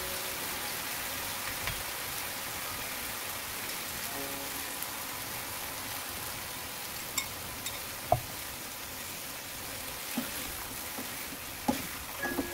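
Sliced mushrooms sizzling in oil in a nonstick frying pan, a steady hiss, with a few sharp knocks of a utensil against the pan about halfway through and again near the end as the mushrooms are stirred.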